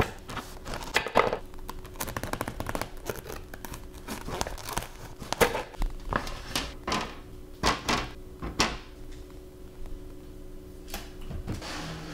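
A knife sawing through a crusty baguette on a wooden cutting board, the crust crackling. This is followed by a series of separate thunks and knocks as the bread pieces and a metal baking sheet with a wire rack are handled.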